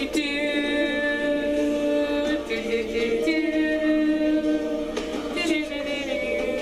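Choir-style singing: several voices holding long notes together, shifting pitch every second or two, with no clear words.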